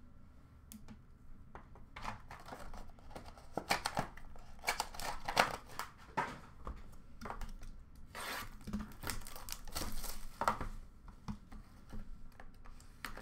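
Hockey card packaging being torn open and crinkled by hand, with cards shuffled: a run of short crackling rips and rustles.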